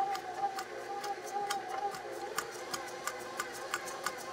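Stand mixer running a wire whisk through a small amount of softened butter in its stainless steel bowl: a steady motor whine with regular sharp ticks, about three a second.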